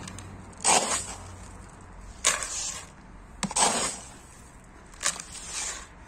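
Granular bonsai substrate poured from a scoop into a plastic training tray, four pours, each a sudden gritty rattle that trails off within about half a second.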